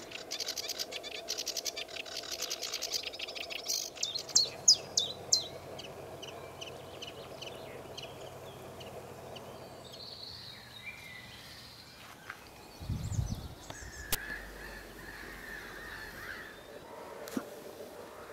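Sedge warbler singing a fast, scratchy, rattling chatter for the first five seconds or so. Fainter scattered bird calls follow, with a short low rumble about two thirds of the way through.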